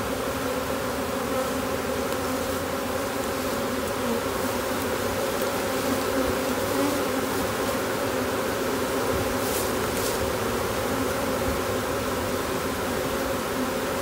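A newly hived swarm of honey bees buzzing around the hive box and its entrance as they move in: a steady hum with several pitches.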